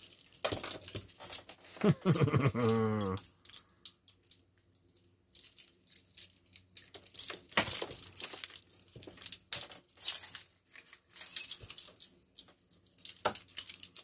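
Stacked steel handcuffs on both wrists clinking and jangling as a shim is worked into one cuff to open it, with scattered small metallic clicks. A brief whining vocal sound about two seconds in.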